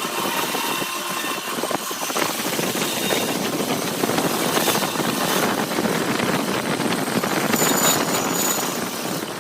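A woodturning lathe running, with the spinning workpiece being worked: a steady, noisy whir.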